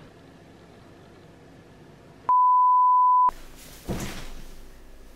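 A single steady electronic beep, one pure high tone about a second long that starts and stops abruptly, like a bleep tone added in editing. It comes about two seconds in, between faint room noise before and some light rustling after.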